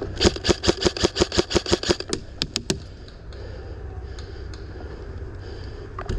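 Airsoft gun firing a rapid string of shots, about seven a second for roughly two seconds, followed by three sharper single cracks.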